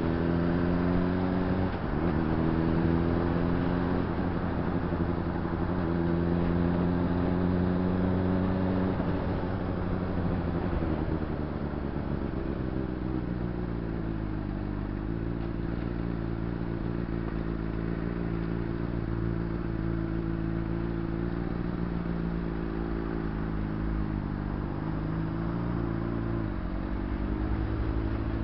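Honda CBR600RR's inline-four engine pulling up through the revs, its pitch dropping at a gear change about two seconds in and climbing again. It then eases off, runs steadily at a lower pitch, and picks up again near the end.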